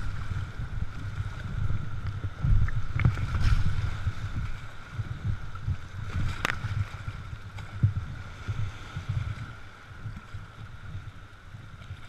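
Whitewater rushing and splashing around a canoe running a rapid, with low wind rumble on the microphone and a few sharp knocks about 3, 3.5 and 6.5 seconds in. It grows quieter over the second half as the canoe reaches calmer water.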